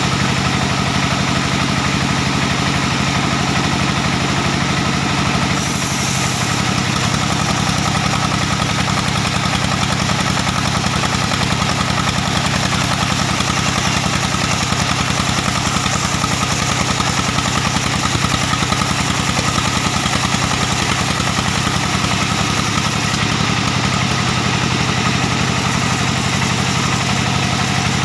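Diesel engine driving a band sawmill, running steadily while the saw cuts an old, dry acacia log. A higher hiss joins about six seconds in and drops away a few seconds before the end.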